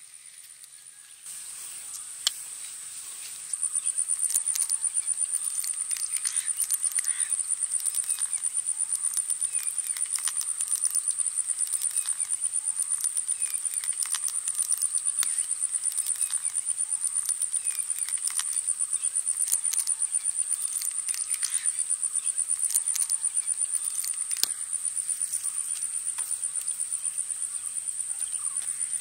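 Outdoor insect chorus, a steady high-pitched chirring with a fast even pulse, with scattered short bird calls and faint ticks. It gets louder in two steps, about a second in and again about three and a half seconds in.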